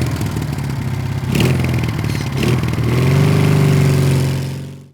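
Motorcycle engine running, with two short throttle blips about a second and a half and two and a half seconds in, then held at a steady higher rev before fading out near the end.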